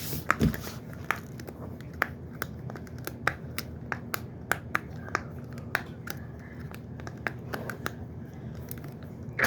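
Hard-shell pop-it fidget toy being pressed: sharp, irregular plastic clicks, roughly three a second.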